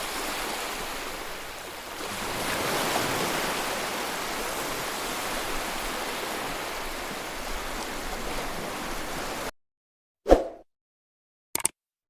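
Steady rushing water noise that fades in and cuts off suddenly about nine and a half seconds in, followed by a sharp thump and a couple of brief clicks.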